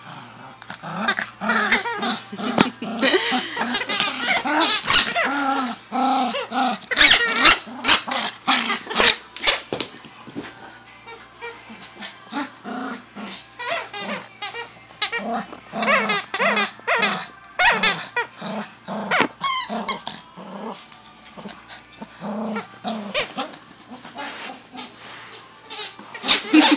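Yorkshire terrier growling and yipping in play as it tugs and shakes a plush toy, in many short, rapid sounds.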